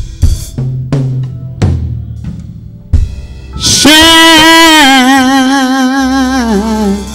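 Live gospel band ending a song: a few loud drum kit hits over the first three seconds, then a long held note with vibrato over the band that wavers and steps down in pitch just before it stops.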